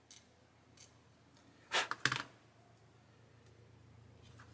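Two short cutting strokes on a small plastic model-kit part about two seconds in, trimming away an ejector pin mark, after a few faint clicks. A faint low drone from a distant helicopter builds near the end.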